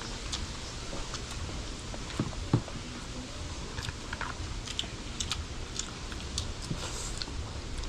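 Eating at a table: chewing, with scattered light clicks and taps of spoons and forks against a plastic bowl and the food, over a steady low rumble.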